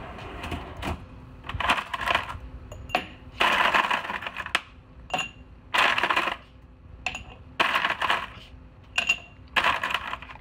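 Plastic laundry basket rattling and clinking in about a dozen short, irregular bursts.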